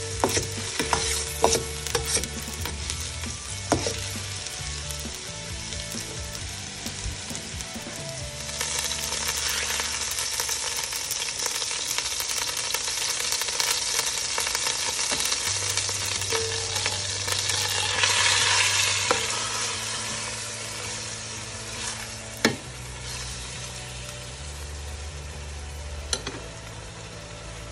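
Diced onion and garlic sizzling in oil in a stainless steel pot, with a spatula stirring and clicking against the pot a few times. About eight seconds in the sizzle grows louder as minced pork fries in the oil, loudest a little past the middle.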